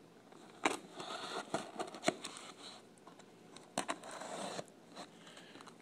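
Packing tape on a cardboard box being scraped and cut at with a hand tool: a rasping scratch against the cardboard, broken by a few sharp clicks.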